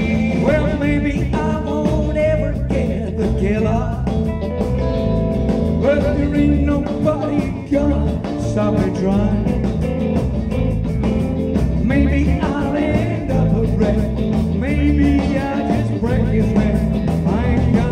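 Live rock'n'roll band playing: a man singing lead over electric guitars and a driving drum beat.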